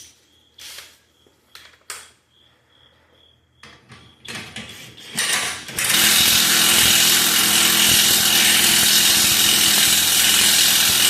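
Power tool, most likely an impact wrench, running loud and steady for about six seconds from about halfway in, then stopping sharply. Before it come a few tool clinks and short starts of the tool.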